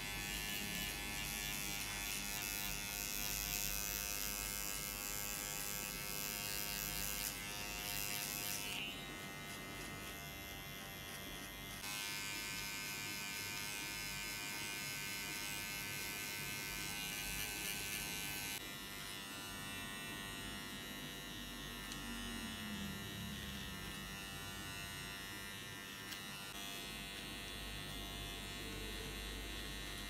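Cordless electric hair clipper with a No. 1 guard buzzing steadily as it cuts hair. Its sound changes abruptly a few times as it is pressed and moved along the head.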